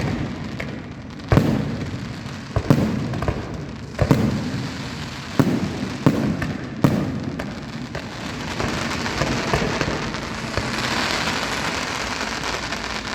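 Fireworks bursting overhead: six sharp booms with echoing tails, about one a second. From around the ninth second they give way to a dense, steady crackling.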